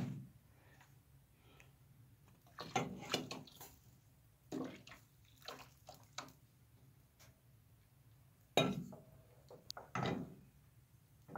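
Flour-and-water mix poured from an enamel bowl into a steel pot of hot water and stirred in with a wooden spoon: splashing, with several short knocks and clinks of the bowl and spoon against the pot, the loudest about eight and a half seconds in.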